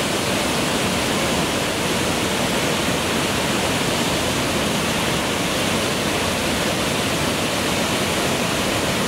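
Waterfall: a river's whitewater pouring down steep rock chutes and around boulders, a steady, unbroken rushing.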